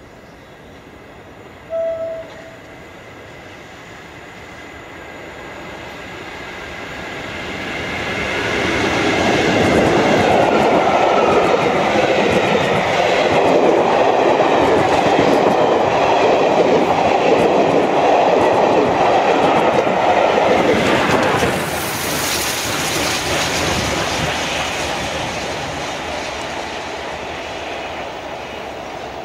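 A passenger train approaching and passing close by, with a short horn toot about two seconds in. The train then runs past loudly for some twelve seconds, its wheels clattering over the rail joints. The sound drops suddenly about three quarters of the way through, and a more distant train runs on, fading.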